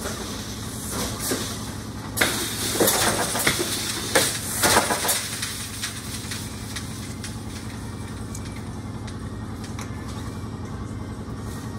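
Wooden floor loom being worked by hand: a run of knocks and swishes from the beater, shuttle and treadles over the first five seconds or so, then a steady low hum.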